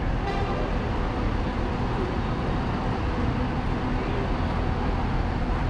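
Street traffic noise with a large touring coach's engine running as it drives past close by, a steady low rumble.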